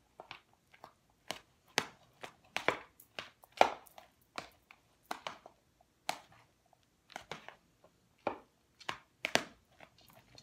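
A metal serving spoon stirring macaroni pasta salad in a large mixing bowl: irregular knocks and scrapes of the spoon against the bowl, about one or two a second.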